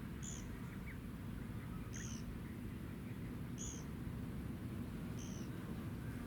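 A bird gives a short, high chirp four times at even intervals of about 1.7 s. Under it runs a steady low rumble, the sound of the ship's engines.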